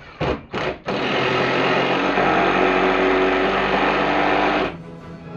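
Power drill driving a screw into wood: two short trigger blips, then a steady run of about four seconds that stops suddenly.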